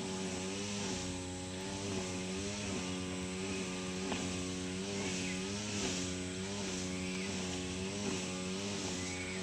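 A small engine running steadily, its drone dipping slightly in pitch about every second.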